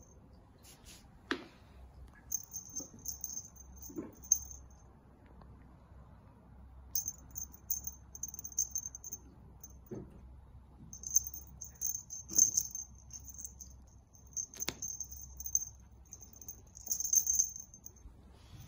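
A small bell jingling in short repeated bursts while a cat bats at a wand toy, with a few sharp knocks of paws and toy in between.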